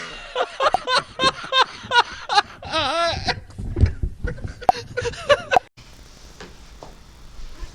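A person laughing loudly in a rapid string of bursts, with a drawn-out wavering laugh about three seconds in, cutting off abruptly near the end.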